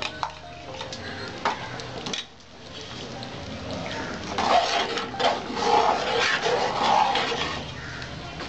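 Metal spoon stirring thick sabudana khichdi in an aluminium pot. It makes a few sharp clinks against the pot in the first couple of seconds, then wet, sloppy stirring sounds that grow louder from about halfway.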